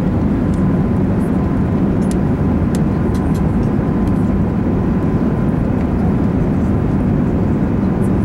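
Steady cabin noise inside an Airbus A380 during descent: a deep, even rumble of engines and rushing air, with a faint steady whine above it.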